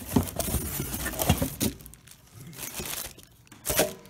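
Cardboard packing and plastic wrapping rustling and crinkling as a new air cleaner is unpacked from its box, then a quieter spell and one short, sharp rustle near the end.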